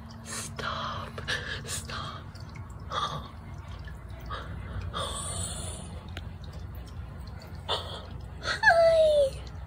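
Cat at a screen door with soft clicks and scratches, then one falling meow near the end.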